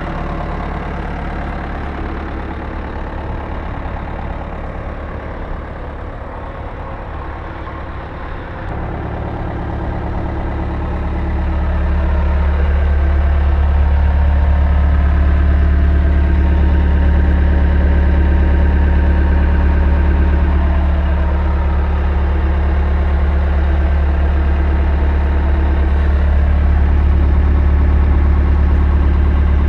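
CAT 242B3 skid steer's diesel engine running steadily, growing louder about ten seconds in and staying at the louder level.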